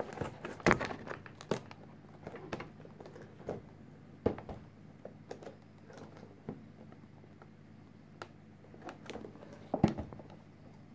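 Cardboard power-supply box handled and turned over on a tabletop: scattered scrapes, taps and rustles, the loudest about a second in, around four seconds in and near ten seconds in.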